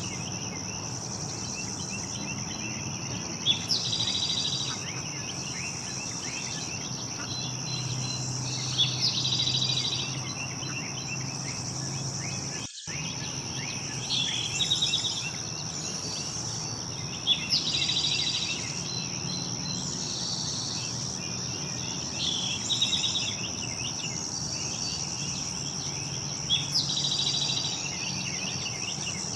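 A steady, high-pitched insect chorus of crickets or similar insects, with a songbird singing a short trilled phrase every four to six seconds over it. A faint low hum runs underneath, and the sound drops out for an instant near the middle.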